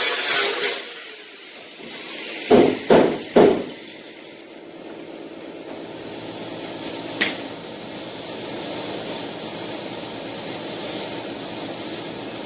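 Angle grinder cutting through the car hood's sheet metal, stopping less than a second in, its disc whine dying away over the next few seconds. Three sharp metallic knocks come in quick succession about two and a half to three and a half seconds in.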